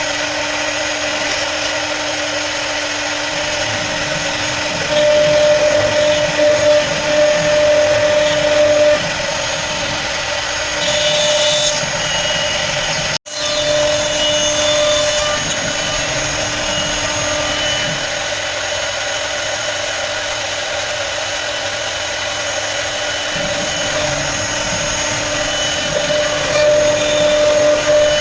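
CNC router spindle running with a steady whine as it cuts a jali lattice pattern. The sound breaks off for an instant about halfway through.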